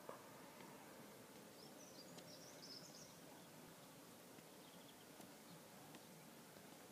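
Near silence: faint open-air ambience, with a few brief high bird chirps about two to three seconds in.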